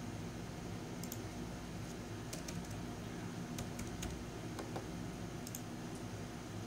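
Computer keyboard being typed on: about a dozen short, irregular key clicks over a steady low hum.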